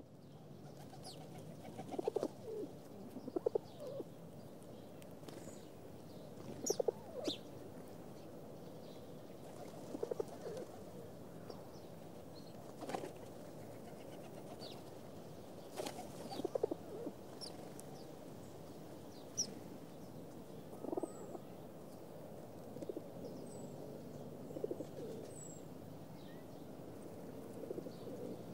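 A flock of feral pigeons cooing as they feed on the ground, a short coo every second or two. There are scattered sharp clicks and a few faint high chirps.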